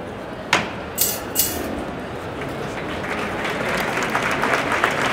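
Street crowd, with three short sharp sounds in the first second and a half, then applause that builds steadily louder.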